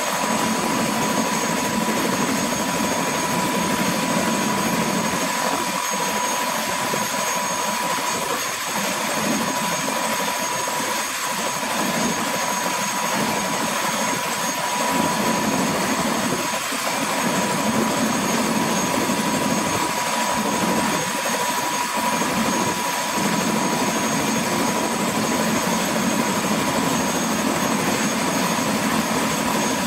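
Eurocopter AS350B-2 AStar helicopter running on the ground with its rotors turning. The Turbomeca Arriel turboshaft gives a steady high whine over the even rush of the main rotor.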